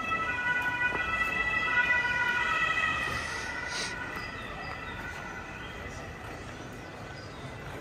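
A siren sounding in held tones that step between pitches, fading away about four seconds in.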